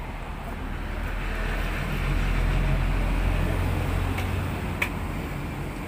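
Road traffic: a vehicle's engine rumble swells about a second in and fades again as it passes close by. A single short click comes near the end.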